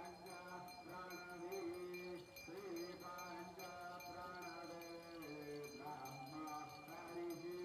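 Hindu devotional chanting for an aarti: a voice sings long held, wavering notes over a steady drone, with a fast, even ticking high above it.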